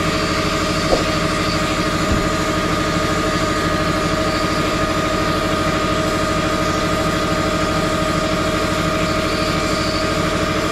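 Air compressor running steadily under the constant hiss of air and grit from a sandblasting gun inside a DIY glass-tank blasting cabinet.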